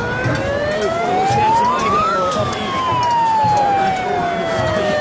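A siren wailing, its pitch rising for about two seconds and then falling slowly, over the noise of a large crowd.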